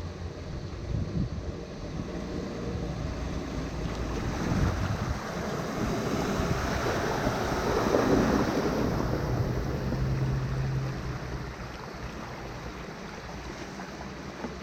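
A 4x4's engine running as it drives through a river, with rushing and splashing water that swells to a peak around the middle and then eases off.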